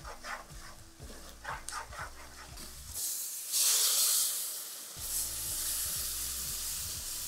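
Quiet stirring of a sizzling butter-and-flour curry roux; about three seconds in, a ladle of stock poured into the hot roux sets off a loud hiss that settles into a steady sizzle as the spoon stirs it in.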